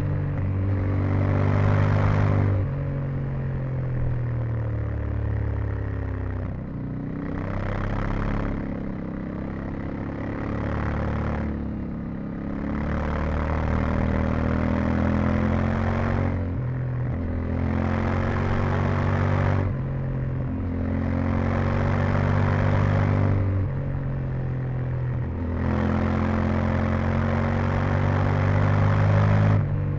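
Yamaha Ténéré 700's 689 cc parallel-twin engine, stock exhaust, heard from onboard as the bike is ridden hard along a twisty road. It pulls hard and backs off again about seven times, its pitch stepping between gears, and a rushing noise comes in with each pull.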